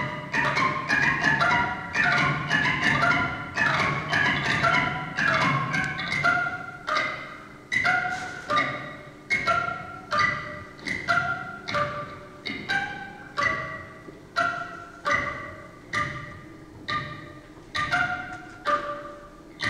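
Pitched, bell-like notes from a homemade rhythm machine, a long tube studded with cable ties turning on a wood lathe. At first the notes are dense and overlapping. After about six seconds they thin to single struck notes, roughly two a second, each ringing and fading.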